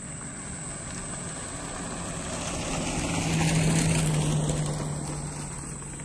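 A motor vehicle passing: a steady engine hum with a rush of noise that swells to a peak about halfway through and fades away again.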